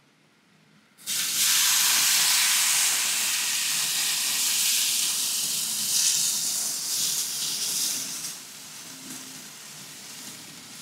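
Basting liquid poured over a whole rabbit on a hot gas grill, sizzling and hissing as it hits the meat and grates. The sizzle starts suddenly about a second in and dies down to a quieter hiss near the end.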